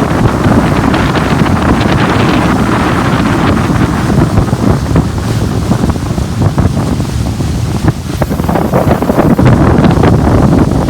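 Wind rumbling loudly on the microphone aboard a small boat at sea, with waves splashing and slapping in uneven bursts.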